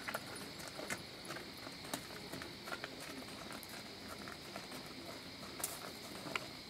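Yearling Quarter Horse's hooves and a person's footsteps walking on gravel: scattered light, irregular steps, with a couple of sharper clicks near the end.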